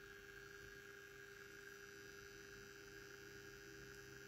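Faint steady electric hum with a thin high whine, barely above silence, from a model electric locomotive running on a digital decoder.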